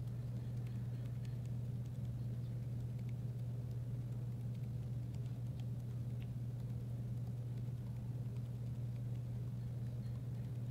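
A steady low hum dominates throughout. Over it come faint, scattered soft ticks of a felt-tip marker tip being dabbed again and again onto sticky slime.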